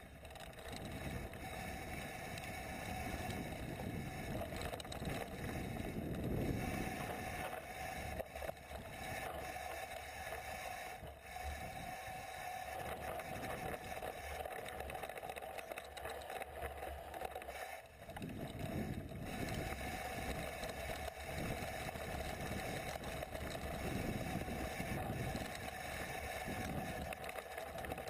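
Mountain bike ridden down a dirt singletrack: tyres rolling over the trail, the bike rattling over bumps and wind rushing past the microphone, with a short lull about two-thirds of the way in.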